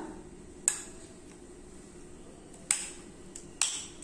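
A metal spoon clinking three times against ceramic dishes as paste is scooped from a plate and scraped off into a bowl.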